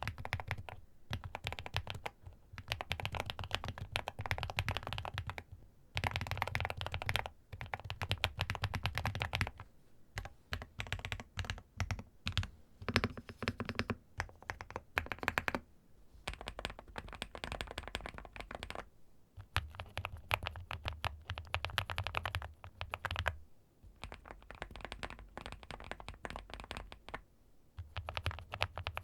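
Typing on Weikav mechanical keyboards: quick runs of keystroke clacks in bursts of a few seconds, with short pauses between them. In the later part, the Stars75s and the Stars80 are typed on in turn, both fitted with Rouge switches.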